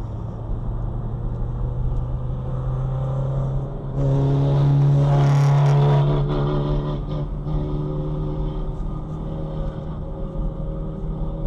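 Car engine and road noise, steady throughout, swelling louder for about two seconds near the middle.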